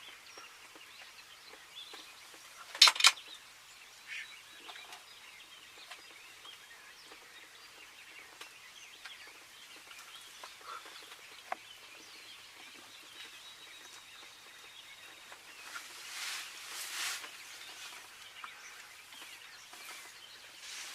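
Quiet outdoor ambience with faint, scattered bird chirps. About three seconds in there is a short, loud double crack, and around sixteen to seventeen seconds a few seconds of rustling.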